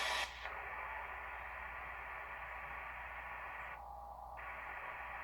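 Steady receiver hiss from an HTOOL SDR-V5 software-defined radio's speaker, tuned to an empty CB channel on upper sideband. It opens with a short louder burst of static, and the hiss thins briefly about four seconds in.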